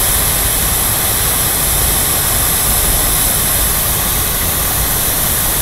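Large jet fountain's tall water column falling and splashing into its basin: a steady, loud rushing hiss with a low rumble underneath.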